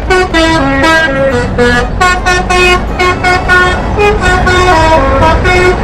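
Bus 'telolet' multi-tone horn playing a quick tune of short held notes that step up and down in pitch.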